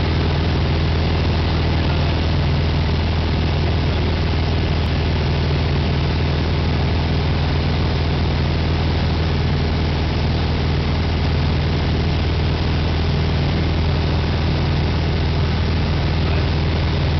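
Single-engine light aircraft's engine and propeller droning steadily, heard from inside the cockpit, with a constant rush of airflow over it.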